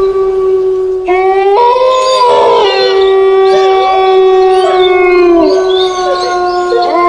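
Several canines howling together in long, overlapping howls. One held howl runs throughout, others join about a second in with rising glides, and the first howl drops in pitch and fades a little past five seconds.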